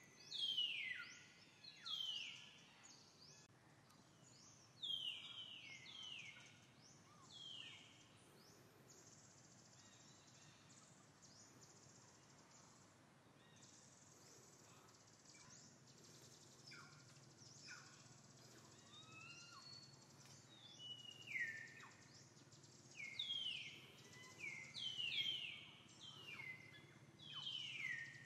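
Forest birds calling: series of quick, downward-sliding whistled notes, in clusters near the start and again through the second half, over a faint low steady hum.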